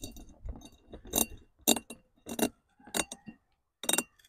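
Loose steel mounting hardware (bolts, nuts and washers for a saddlebag bracket) clinking in the hand, with several sharp, ringing metal clinks about every half second to second and soft handling noise between them.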